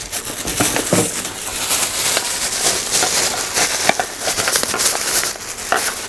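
Irregular crackling and crinkling of plastic being handled, with many small scattered clicks.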